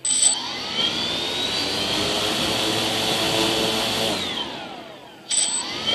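DJI F450 quadcopter's brushless motors and propellers spinning up sharply and running steadily with several tones at once. They wind down about four seconds in, then spin up sharply again near the end.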